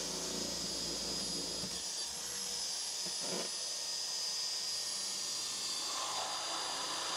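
Electric drill running steadily under load with a high whine, boring a pilot hole through the cabin's wood-framed wall to the outside.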